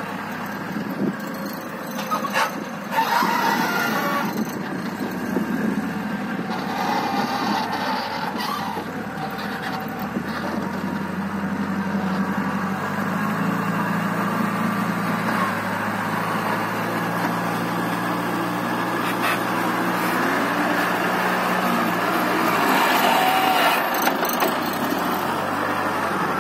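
Compact wheel loader's diesel engine working under load as the loader lowers its bucket and drives it into a pile of soil. The engine note settles higher and steady from about halfway through, then drops back near the end, with a few short knocks early on and once later.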